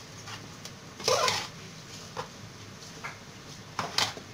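Metal spoon stirring raw rice stuffing in a large aluminium pot: a short grainy scrape about a second in, then light clicks of the spoon against the pot, sharpest twice near the end, over a low steady hum.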